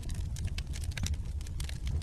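Burning logs in a fireplace crackling, with many small sharp pops a second over a low steady rumble.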